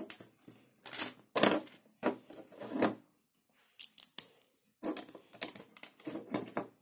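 Plastic Lego bricks clicking and clattering as they are handled and pressed onto a small model: a run of sharp clicks, with a short pause a little before the middle.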